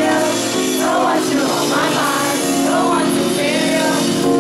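Live concert music: a woman sings into a microphone over the band's steady held chords.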